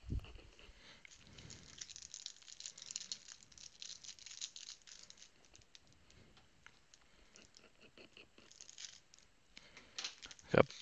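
Trading card pack being handled: the foil wrapper crinkles and tears, and the cards slide and click against each other as they are leafed through. A soft knock sounds at the very start.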